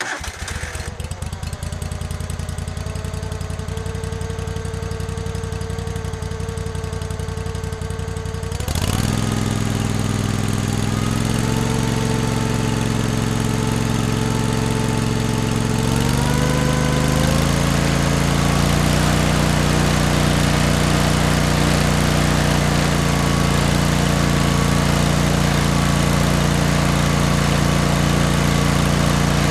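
Lawn mower engine running steadily. About nine seconds in it gets louder and faster, and its pitch rises again around seventeen seconds before it holds a higher speed.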